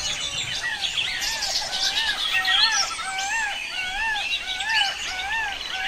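Birds chirping: one call that rises and falls repeats about twice a second, with scattered higher chirps over it.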